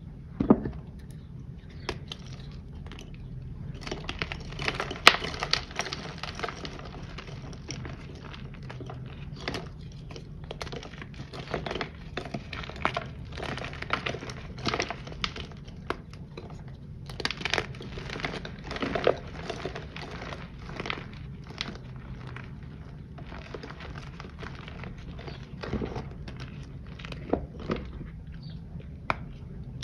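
Handmade reformed powder shapes being crushed and crumbled by hand: irregular soft crunches and dry powdery crackling as chunks break and loose powder is squeezed. It runs over a low steady hum.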